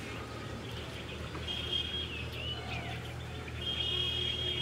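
Birds calling: a few high, held whistled notes and short sliding chirps, over a steady low hum.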